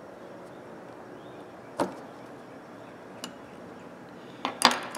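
Sharp metal clicks from a small pipe wrench being put back together, a steel pin working the jaw spring down inside the housing. One click about two seconds in, a faint one a little later, and a quick cluster of louder clicks near the end.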